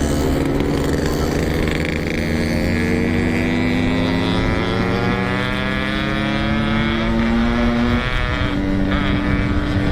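Yamaha RX King 135cc two-stroke single-cylinder motorcycle engine running on the road at light throttle. Its pitch climbs slowly over several seconds, then shifts abruptly about eight seconds in.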